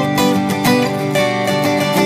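Background music: acoustic guitar picking and strumming at a steady pace.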